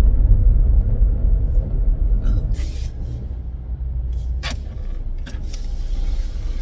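Low, steady road rumble inside a moving car's cabin, with a few brief clicks and knocks.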